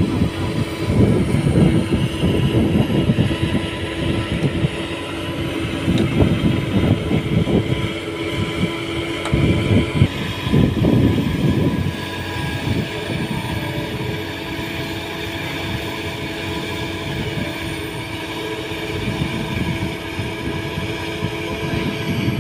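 Doosan DX225LCA hydraulic excavator's diesel engine running with a steady hum, surging several times under hydraulic load in the first half as the bucket works bamboo stakes into soft peat ground, then running more evenly.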